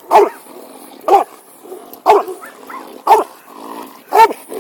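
Donovan Pinscher barking up at its handler: five sharp, loud barks at an even pace, about one a second.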